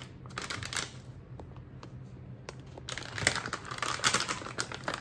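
Plastic topping packets crinkling and rustling in the hand in two bouts of handling, as toppings are shaken out of a bag onto a pizza and then a second packet is picked up.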